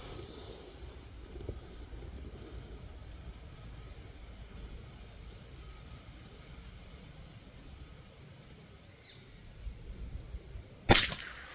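A single .22 LR rifle shot, sharp and sudden, near the end, fired to check a sight adjustment. Before it, insects drone steadily at a high pitch.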